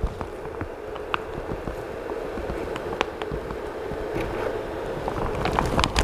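A few faint clicks and knocks of handling as the build plate is detached from a resin 3D printer and lifted off, over a steady background hum.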